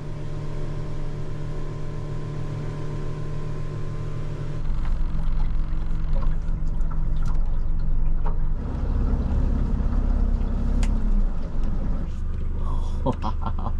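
Boat engine running steadily under way. Its note gets louder and heavier about four and a half seconds in, then eases off a little near the end.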